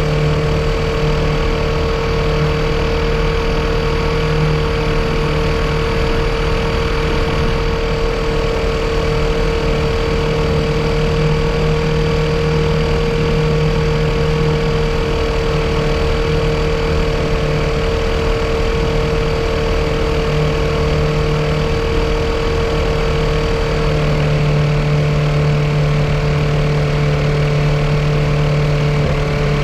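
Yamaha Apex four-cylinder four-stroke engine running steadily at a constant speed. It is being run to chase a misfire that the owner suspects is a vacuum leak.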